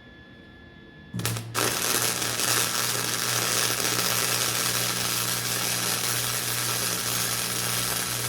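Stick welder running a bead: a steady crackling hiss over a low electrical hum. The arc strikes about a second in, stutters briefly, then burns continuously and cuts off sharply near the end.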